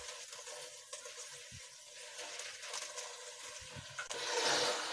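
Fresh spinach leaves rustling wetly as hands press them down into a steel pot with a little water, over a steady hiss. The rustle grows louder near the end.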